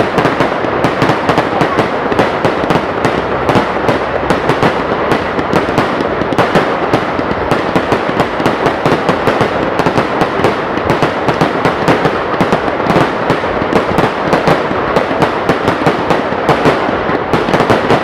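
Fireworks going off in a dense, unbroken run of bangs and crackles, many per second.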